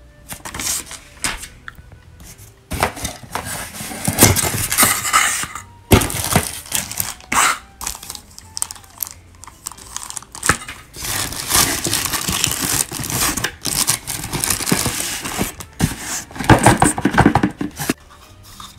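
Clear plastic packaging bag crinkling and rustling as it is handled and opened around a small plastic part, with a folded paper leaflet and a cardboard box rustling too. The sound comes in irregular loud bursts.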